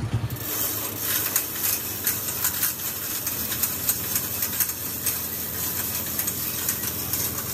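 Manual chain hoist being worked by hand, its steel chain links clinking and rattling in irregular small clicks as it holds a heavy truck axle differential housing.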